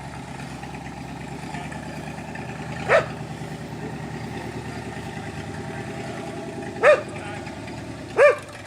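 1958 Chevrolet Apache pickup's engine idling steadily, with a dog barking once about three seconds in, once near seven seconds and once near the end; the barks are the loudest sounds.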